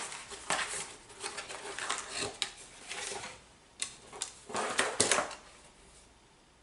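A product box and its packaging being opened and handled: irregular rustling with sharp clicks and knocks, dying away about five seconds in.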